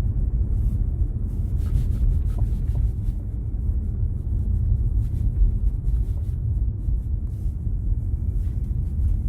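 A car's rear suspension knocking with sharp, ringing knocks over a steady low rumble of road noise while driving. The knocks come at irregular moments, a cluster about two seconds in, one around five seconds and several near the end.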